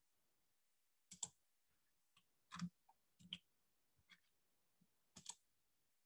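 Faint clicks from a computer being worked, about six of them at irregular spacing, some in quick pairs, over near silence.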